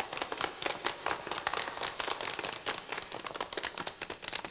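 A group of people applauding, many hands clapping at once; the clapping thins out and fades near the end.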